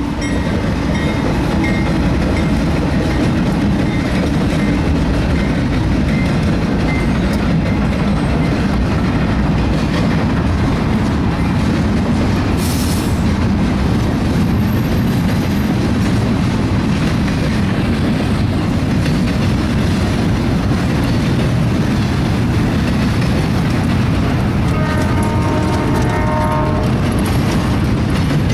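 BNSF double-stack container train passing close by: its diesel locomotives and then the loaded well cars make a loud, steady rumble with the clickety-clack of wheels over rail joints. A brief pitched tone sounds near the end.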